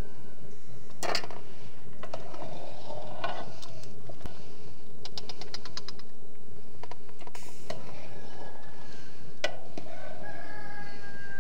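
A rooster crowing, heard twice in the second half, over scattered knocks and clinks and a quick run of ticks in the middle.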